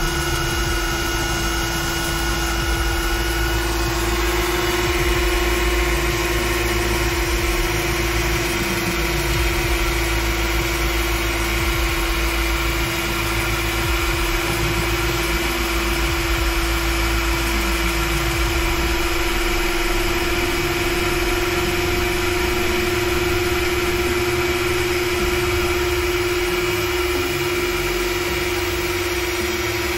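Makita 700C router spindle on a CNC machine running at a steady speed while milling the final cutout, a constant whine with a low rumble underneath. Faint rising and falling tones come and go as the machine's axes move.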